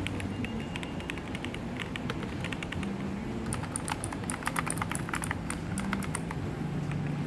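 Keys typed on a mechanical keyboard, a run of quick clacking keystrokes that grows denser about halfway through, over a steady low background hum.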